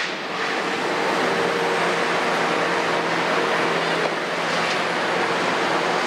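Kobelco 350 hydraulic excavator's diesel engine running steadily under load as it lifts a full bucket and swings it over to a dump truck.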